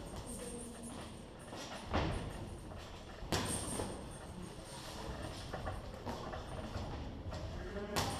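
Boxing gloves landing punches in sparring: a few sharp thuds, the loudest about two seconds in and just after three seconds, another near the end, over steady gym background noise.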